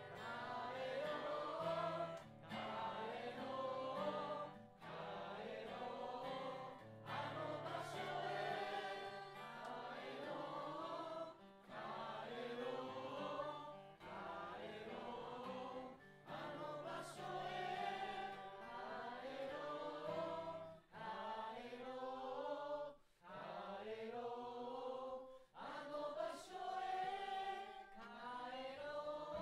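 A small crowd of voices singing a slow song together in phrases of a few seconds, with guitar accompaniment.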